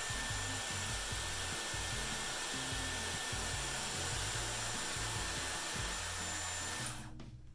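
Dyson Airwrap with its 1.6-inch curling barrel blowing air, a steady rushing hiss that cuts off suddenly about seven seconds in.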